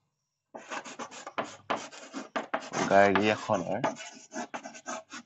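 Chalk scratching on a blackboard in quick, irregular strokes as a line of words is written, starting about half a second in.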